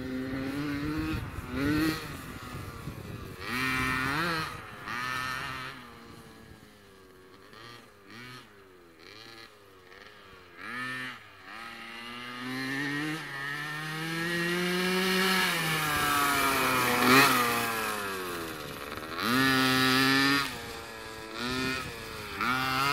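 A small youth dirt bike's engine is revved in repeated short bursts of throttle, rising and falling in pitch as it rides the track. A longer, steadier climb in pitch comes in the middle and peaks a little after two-thirds of the way through.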